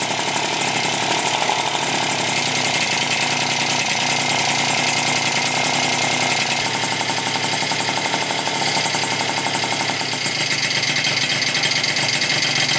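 Freshly rebuilt 70cc Polini Corsa two-stroke Minarelli vertical scooter engine, a Yamaha Zuma prebug, running through a Yasuni R expansion-chamber exhaust at a fast idle while its Polini CP carburettor's idle is being set. The engine note shifts slightly about six and ten seconds in.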